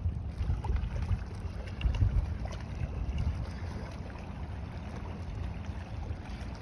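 Wind buffeting the microphone: a gusting low rumble, strongest about two seconds in.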